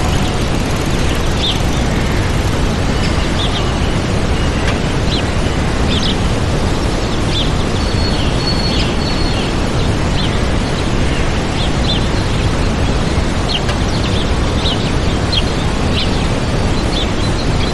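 Waterfall rushing steadily, with small birds giving short, high chirps every second or so over it.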